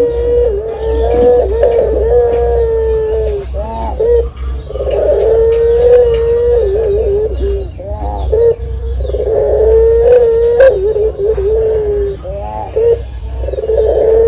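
Collared dove (derkuku / puter) giving long drawn-out coos. Each note is held about three seconds, then wavers and breaks off at the end. There are three in a row with short pauses between them.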